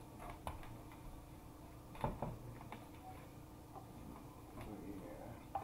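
A few faint clicks and a soft knock about two seconds in, from small objects being handled and set down on a tabletop, over a faint room hum.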